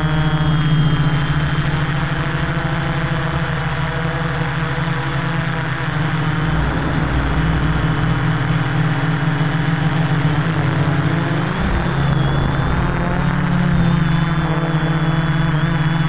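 Quadcopter's electric motors and propellers running with a steady, loud hum and whine while it hovers holding position, picked up close by its onboard camera. About eleven seconds in the pitch dips briefly and then climbs back.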